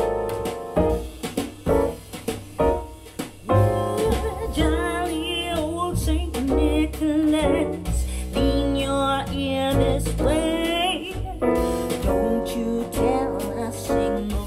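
A song played back through a pair of Pioneer CS-501 three-way speakers and picked up by a microphone in the room: piano chords, then a singing voice comes in about four seconds in.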